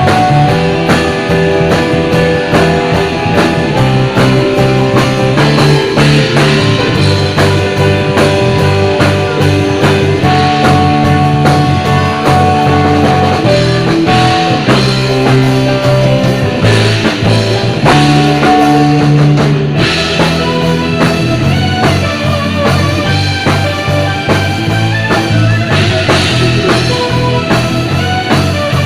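Band music in a rock style, with drum kit and guitar carrying a steady beat under held chords and melody notes.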